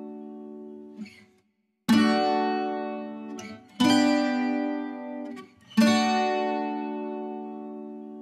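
Background music of strummed chords on a plucked-string instrument such as a guitar, each chord left to ring out and slowly fade, a new one about every two seconds, with a short silent break before the second chord.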